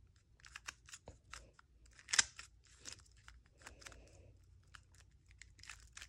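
A plastic puzzle cube being turned by hand: a quick, irregular run of small clicks and clacks as its layers twist, with one sharper clack about two seconds in.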